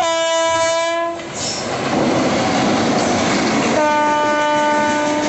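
WAP-7 electric locomotive sounding its horn twice, about a second or more each, the second blast a little lower in pitch, over the loud rush and clatter of the train passing close by.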